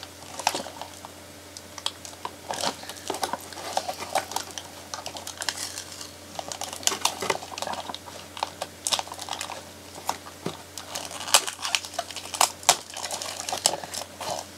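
Toy packaging being handled: irregular crinkling and small clicks of plastic and cardboard as a small plastic snowflake accessory is worked loose from the box.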